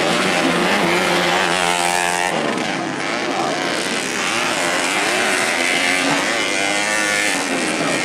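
Several motocross bikes' engines running hard at once, revving up and down in pitch as the riders accelerate out of corners and over jumps.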